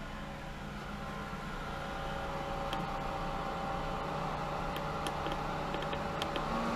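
Hayward Super Pump VS (SP2603VSP) variable-speed pool pump running with a steady motor hum and whine. It grows gradually louder as its speed is stepped up toward 2000 RPM. A few light clicks of the control panel's keypad buttons come in the second half.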